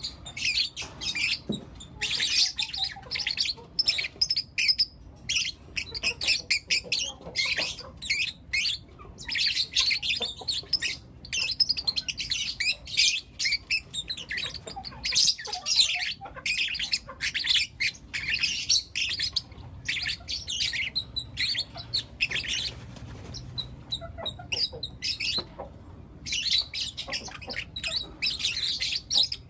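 Young lutino lovebirds chirping and squawking, with rapid high-pitched chirps in dense runs broken by brief pauses.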